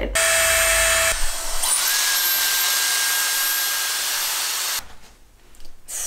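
Dyson Airstrait air straightener running on its dry setting: a loud, steady rush of air over a high motor whine. The whine shifts pitch and settles about a second and a half in, and the sound cuts off about a second before the end.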